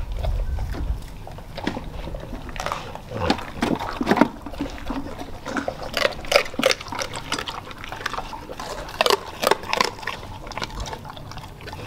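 A dog eating raw meat from a stainless steel bowl: wet, irregular smacking and slurping with sharper clicks, in louder clusters a few seconds in, around the middle and near the end.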